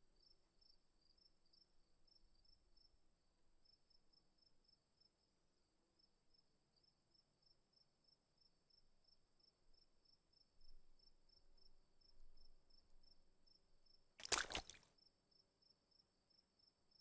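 Near silence with faint, evenly repeated high chirping like a cricket, a few faint soft bumps, and one sharp click about fourteen seconds in.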